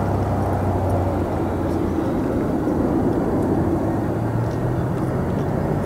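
Jet airliner engines rumbling steadily, with a low drone under a broad roar.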